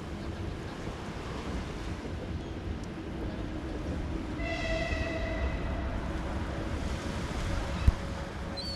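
Train running past with a steady low rumble that slowly grows louder. Its horn sounds once, for about a second, midway.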